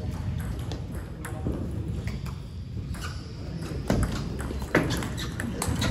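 Table tennis rally: the ball clicking sharply off the paddles and the table in quick succession, with the loudest hits about four and just under five seconds in, over a steady low rumble.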